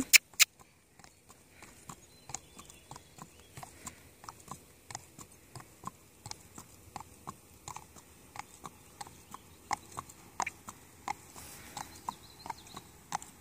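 A horse walking on a paved driveway: its hooves strike the asphalt in a steady, even clip-clop of sharp clicks, about three to four a second.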